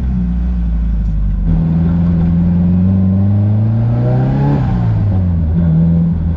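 Nissan SR20DET turbocharged four-cylinder engine pulling under acceleration, its pitch rising steadily for about three seconds. The pitch then drops sharply about four and a half seconds in as the throttle is lifted.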